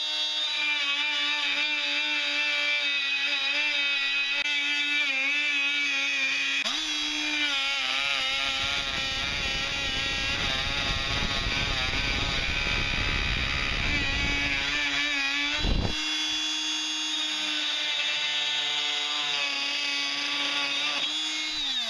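Dremel Multi-Max MM40 oscillating multi-tool with its wood-cutting blade, plunge-cutting into a block of wood: a steady whine, with a rougher rasp from the middle on as the blade works in the wood. A single knock comes a few seconds after that, and the tool is switched off and winds down near the end.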